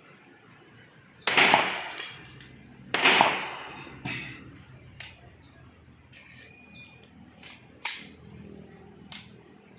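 Two loud 9mm gunshots about a second and a half apart, each with a ringing tail, followed by several fainter sharp cracks.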